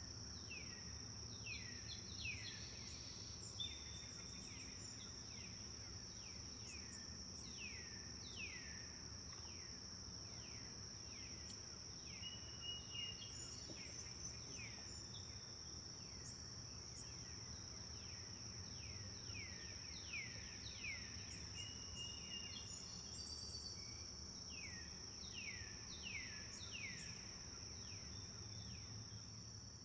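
Forest ambience: a steady high-pitched insect drone, with birds repeating short downward-sliding chirps, about one or two a second, and a few brief whistled notes.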